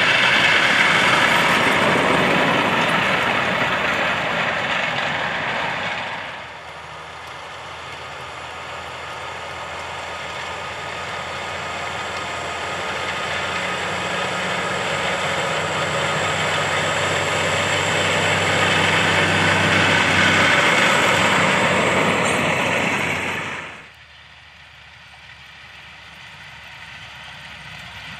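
John Deere 7R 310 tractor's six-cylinder diesel running under load while it pulls a trailed disc cultivator through the soil. Loud at first, it falls away sharply about six seconds in, then grows steadily louder as the tractor approaches, and drops sharply again about 24 seconds in to a quieter, more distant sound.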